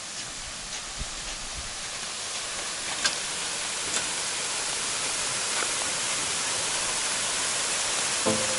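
Steady rushing of falling water, an even hiss that grows gradually louder.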